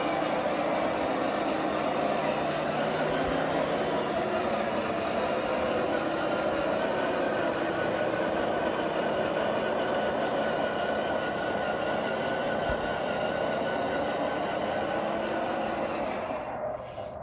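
Radio-controlled bulldozer running steadily, a continuous mechanical hum from its drive and tracks, which drops away sharply near the end.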